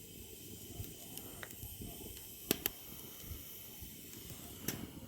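Wood fire of thick logs and branches burning in a grill: a steady low rush with a few sharp crackles and pops, two of them close together about halfway through.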